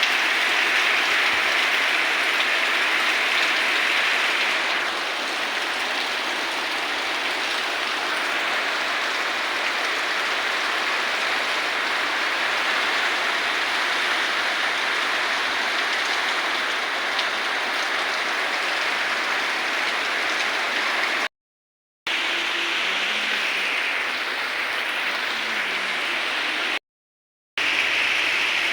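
Steady rain falling: a dense, even hiss of drops. It cuts to dead silence twice, briefly, in the last third.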